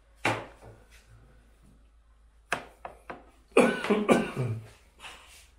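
A man coughing: a short cough just after the start, three quick ones around two and a half seconds in, then the loudest, longest fit of coughing at about three and a half seconds, and a last small cough near the end.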